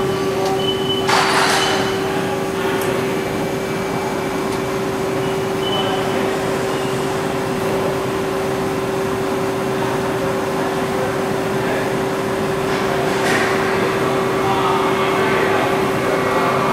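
Steady hum of a powered-up CNC lathe, one constant tone under a noisy haze, with two short hissing bursts, one about a second in and one about thirteen seconds in.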